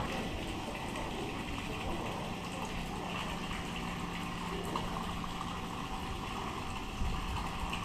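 Steady rushing noise like running water, with a low steady hum underneath.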